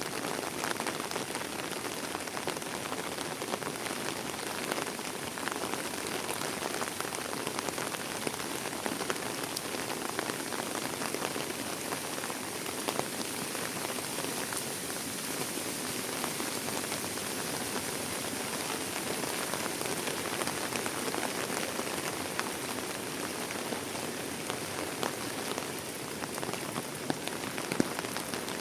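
Heavy rain falling steadily, with many individual drops ticking sharply close by.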